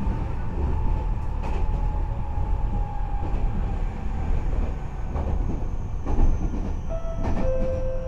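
Inside a Nagoya Municipal Subway N3000 series car on the move: steady low rumble of wheels on track with a few clicks, and a faint whine that slowly falls in pitch. Steady tones come in near the end.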